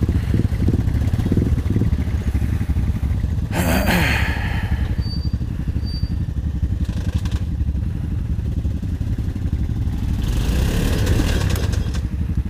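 ATV engines running, with two louder stretches of revving about three and a half and ten seconds in as a stuck ATV spins its wheels in the mud. Its rear wheels are not driving, which the riders put down to a broken rear end or drive shaft.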